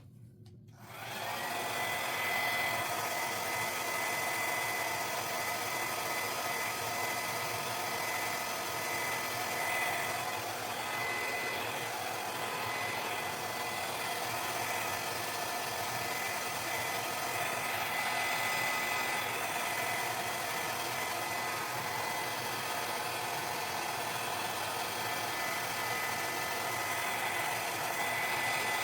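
Small hair dryer switched on about a second in, spinning up and then blowing steadily: a rush of air with a high whine held on one note.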